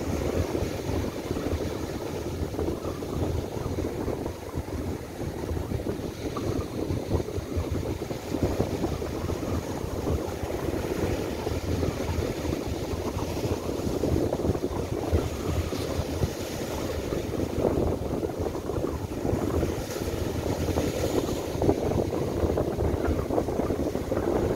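Strong, gusty wind buffeting the microphone over surf breaking and washing up a sandy beach, with spells of brighter hiss as waves wash in.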